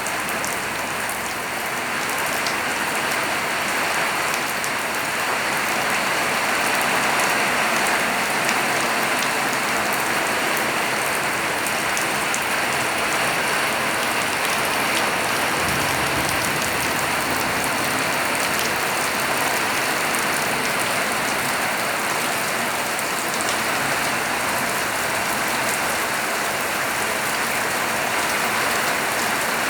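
Steady rain falling, with the ticks of separate drops striking a surface.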